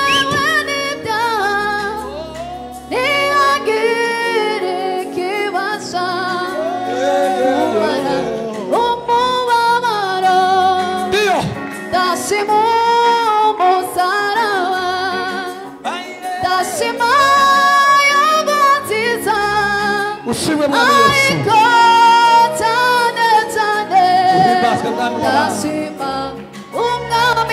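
Gospel song: a woman singing a melodic line with much pitch bending over instrumental accompaniment, with held bass notes that change every second or two.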